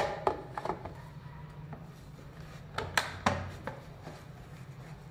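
Handling noise from fitting a motor unit into a hard plastic housing: scattered clicks and knocks of parts being moved and seated, with a sharper cluster of knocks about three seconds in, over a faint low hum.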